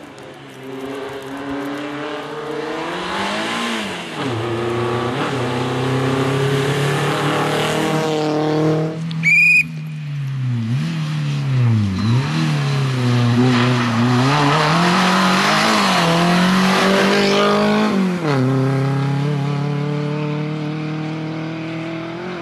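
Renault Clio Williams rally car driven hard on a stage, its engine revving up and dropping again and again through gear changes and lifts for corners as it approaches, passes and pulls away. About nine seconds in there is a short, high rising squeal.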